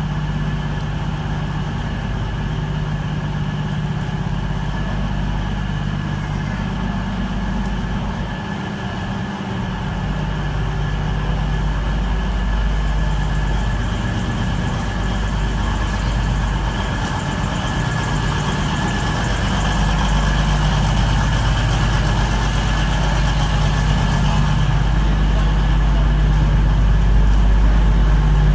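A CrossCountry Voyager diesel multiple unit's underfloor diesel engines idling steadily while it stands at the platform, a deep hum with a constant high whine over it. The sound grows gradually louder in the second half.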